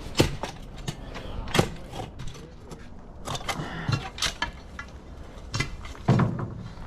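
Irregular sharp knocks and cracks of a corner being broken out by hand, about a dozen strikes, the loudest about a quarter second in, a second and a half in, four seconds in and just after six seconds.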